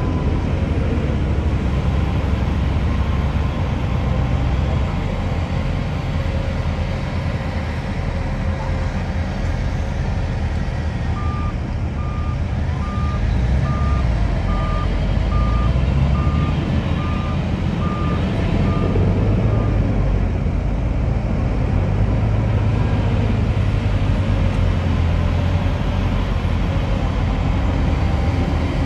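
Heavy diesel earthmoving machinery running steadily with a low rumble. Midway through, a reversing alarm beeps about a dozen times at an even pace, a little over one beep a second, then stops, as a machine backs up.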